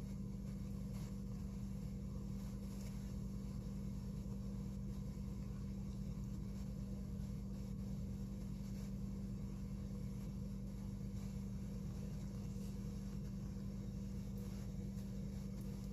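A steady low hum, with a few faint soft clicks.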